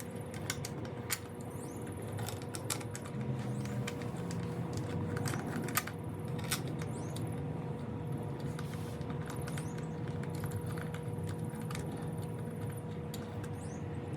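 Scattered light clicks and taps of small metal hardware and hand tools as a bolt is worked into a mounting bracket, over a steady low hum.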